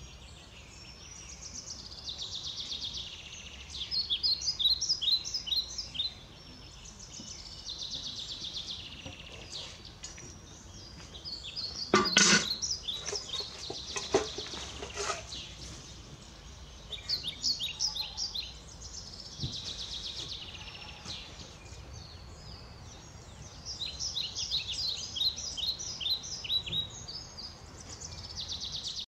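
Songbirds singing, with short, high, rapidly trilled phrases repeating every few seconds. About twelve seconds in, a brief cluster of knocks and rustling is the loudest sound.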